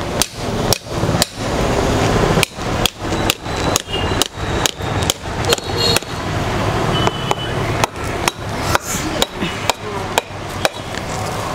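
A large knife wedged in the hard rind of a whole green jackfruit is driven in by hammering its back with a second knife: sharp metal knocks about two to three a second, slightly uneven. The fruit is very hard and not yet ripe, so the blade needs repeated blows.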